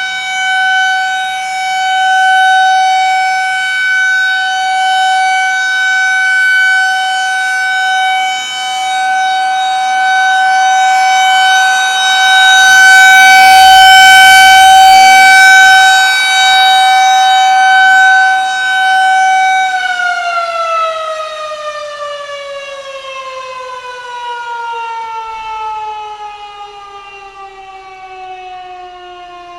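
Federal Signal 2001-130 rotating outdoor warning siren sounding a loud steady tone that swells and fades as the rotating head sweeps past. About two-thirds of the way through it winds down, its pitch gliding steadily lower as it fades.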